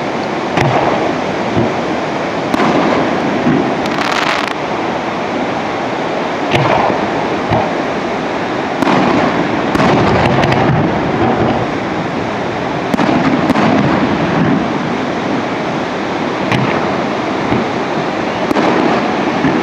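Aerial firework shells bursting, a string of bangs and crackles every second or two over a steady noisy background, with a sharp crackling burst about four seconds in.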